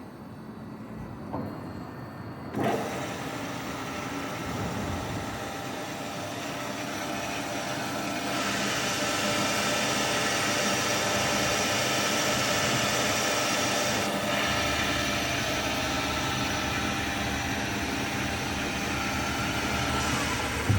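Bomar STG 320 DGH metal-cutting band saw running, switched on with a click about two and a half seconds in, then a steady mechanical noise. The sound grows brighter and louder about eight seconds in and eases a little about fourteen seconds in.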